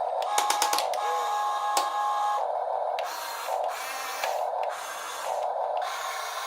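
Small electric gear motors of a Top Race TR-218 remote-control drill excavator toy whirring as its functions are driven. There is a quick run of clicks about half a second in, and in the second half the whirring starts and stops in short bursts about every half second.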